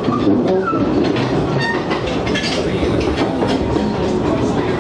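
A narrow-gauge steam train, the locomotive and then its passenger coaches, rolling slowly past: a steady rumble with many quick clicks.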